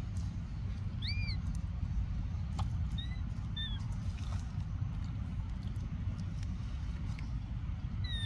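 A newborn macaque's short, high, arching squeaks: one about a second in, two close together around three seconds in, and one near the end. They sit over a steady low rumble.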